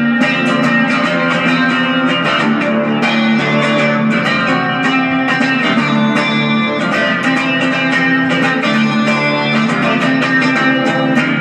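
Guitar music, with many quick plucked and strummed notes at an even, loud level.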